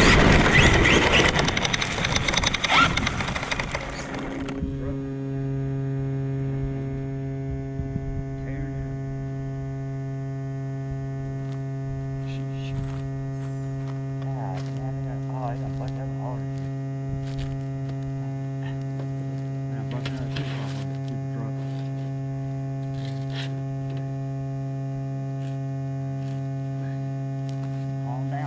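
Traxxas Sledge 6S RC monster truck running over grass for about four seconds, a loud rumbling rattle that stops abruptly. A steady electrical hum with several overtones then continues while the truck sits parked, with a few faint chirps in the background.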